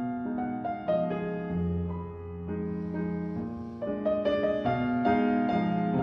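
Background solo piano music.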